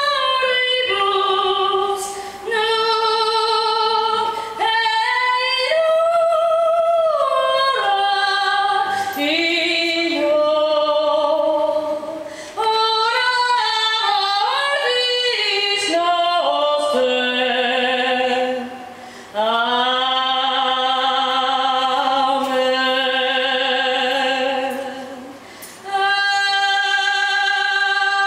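A woman singing solo into a handheld microphone, holding long notes with vibrato, with short breaks between phrases.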